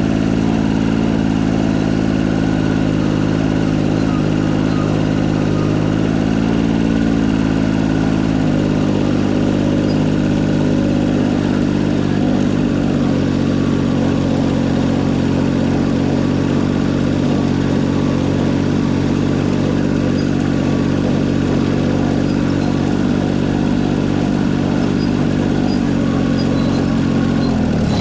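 Air-cooled Deutz diesel tractor engine running steadily under way, heard close up from the hood. Its pitch rises slightly about a quarter of the way in and drops right at the end.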